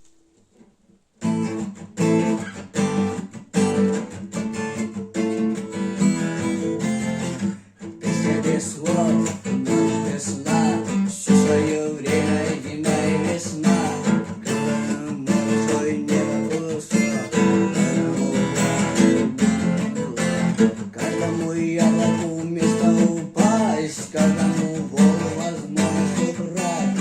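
Acoustic guitar playing a strummed instrumental intro with a steady beat. It starts about a second in and pauses briefly near the eighth second.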